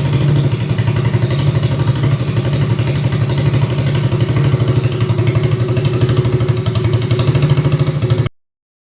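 ATV engine running through a TIG-welded stainless steel exhaust, with a fast, even exhaust beat. It stops abruptly near the end.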